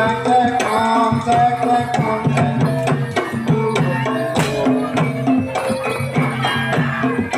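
Javanese gamelan music for a kuda lumping horse dance: hand-drum (kendang) strokes in a steady pattern under a melody of struck metal percussion.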